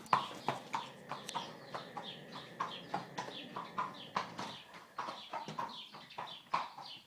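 A pet snoring in short, quick, rhythmic snores, about two or three a second.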